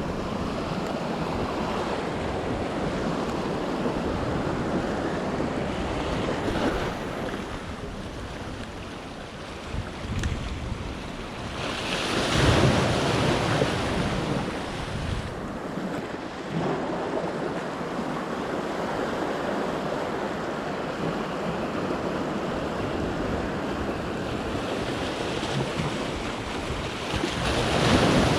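Sea waves washing in, with a steady wash that swells loudest about halfway through and again near the end. Wind buffets the microphone.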